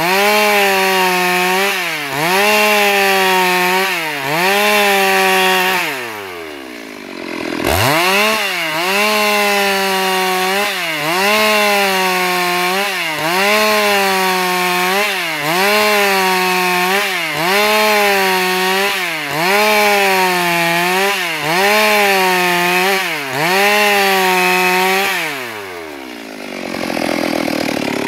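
Stihl MS 382 two-stroke chainsaw ripping a board lengthwise into strips at full throttle, the engine pitch dipping and recovering about once a second as the chain loads in the cut. About six seconds in the engine falls off and revs straight back up, and near the end it drops to idle.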